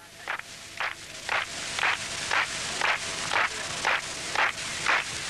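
Footsteps in a steady, even rhythm, about two steps a second, growing louder over the first second or two as they come closer.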